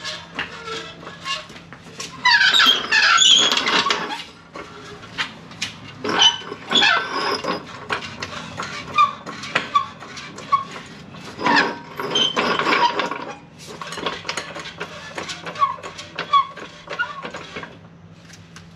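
Trolley floor jack being wheeled across a concrete floor and pumped up under the rear differential to take its weight for removal, with bursts of clattering and short squeaks.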